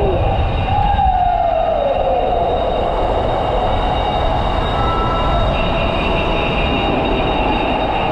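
Steady rumble of wind and road noise during an electric scooter ride, with a whine that falls in pitch between about one and two seconds in.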